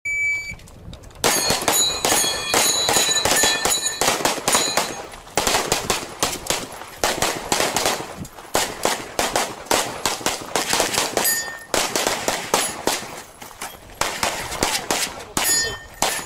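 A short shot-timer beep starts it. Then come rapid strings of pistol shots from Open-division race guns, with steel targets ringing under hits, densest between about one and five seconds in.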